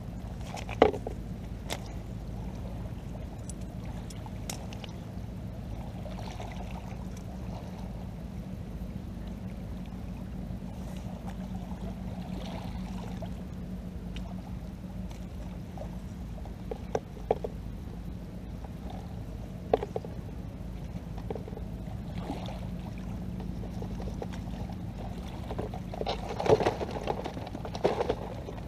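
Water dripping and pouring off a collapsible net crab trap as it is hauled out of the shallows and handled on a pebble shore, with a few sharp knocks and rattles from the trap's frame: the loudest about a second in, a few more in the middle, and a cluster near the end.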